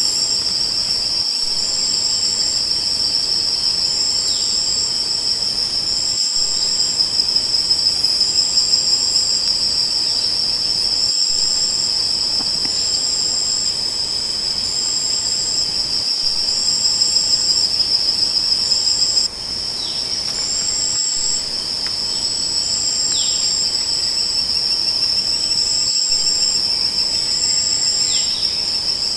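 Crickets trilling: one steady, unbroken high trill, with a second, higher chirping call repeating about every two seconds above it. The level dips suddenly about two-thirds of the way through.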